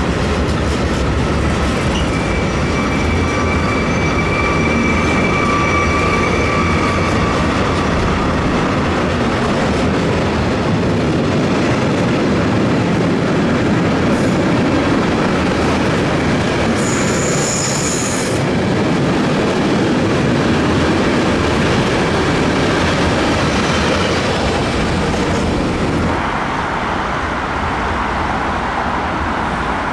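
A train running past close by, its wheels on the rails making a loud, steady rumble. A squeal of wheels on rail rises in the first few seconds, and a brief high squeal comes about halfway through. The noise drops a few seconds before the end.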